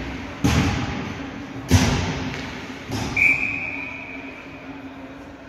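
Three loud thuds about a second and a quarter apart in an ice hockey arena. A high steady tone follows and fades out over about a second and a half, over a low steady hum.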